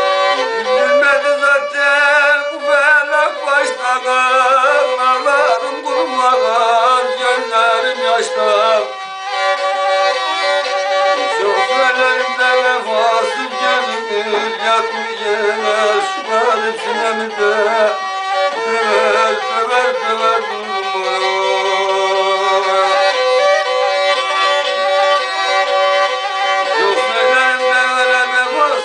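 Kemençe, a bowed folk fiddle held upright on the knee, playing a folk tune: a moving melody over steadily held drone notes. It breaks off briefly about nine seconds in, then plays on.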